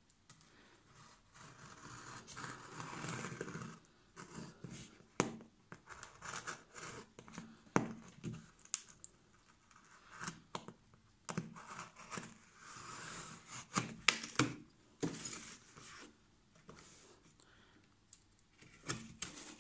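A craft knife slitting packing tape along the seam of a cardboard box: stretches of scratchy cutting and tearing, broken by many sharp clicks and taps.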